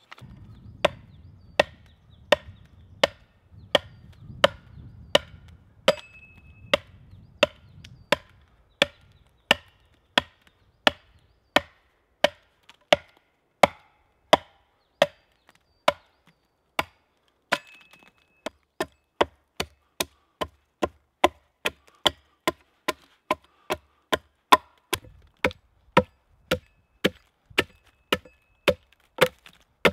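Axe chopping into a log, steady and rhythmic at about three strikes every two seconds, as the wood is hewn flat.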